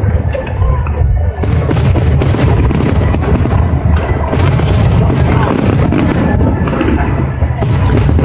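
Fireworks display: a dense, continuous run of booming aerial shell bursts over a steady low rumble, with music and crowd voices underneath.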